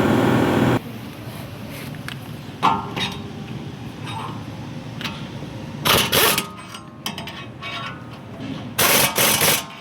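Metal tools clinking and knocking during wheel bearing work: scattered sharp clanks, with louder pairs about six and nine seconds in. A loud steady machine noise stops abruptly in the first second.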